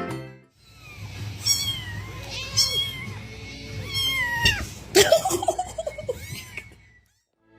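A domestic cat meowing several times, each call gliding up and down in pitch, with a sharp knock about five seconds in.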